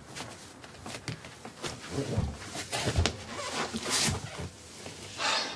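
Clothing rustling and soft movement noises as a man kneels down on a tatami floor, with a dull thump about three seconds in and a short sniff near the end.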